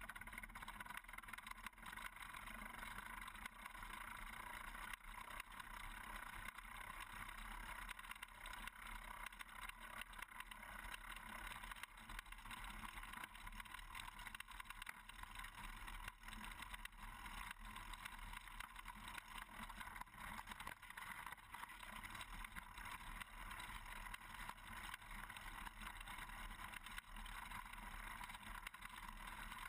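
Pedal-powered moonbuggy rolling over a rough gravel and obstacle course: a steady rumbling noise with many small clicks and rattles from the wheels and frame.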